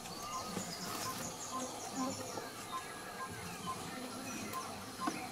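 Central African rainforest insect chorus: steady buzzing and chirping, with a run of short, even pips about three a second.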